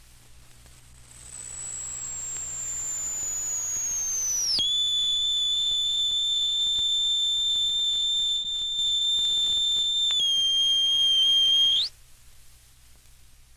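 Electronic science-fiction sound effect: a high, pure whistling tone glides slowly downward, drops suddenly to a steady tone, steps a little lower, then sweeps briefly upward and cuts off. Faint record hiss and hum lie beneath it.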